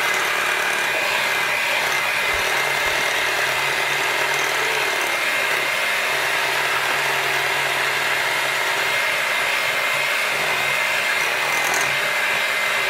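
Electric mixer running steadily, beating eggs into oatmeal cookie dough.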